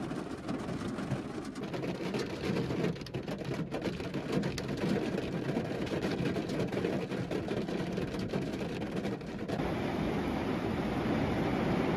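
Heavy rain falling, a dense crackling patter. About nine and a half seconds in it gives way to a steadier, deeper rushing noise.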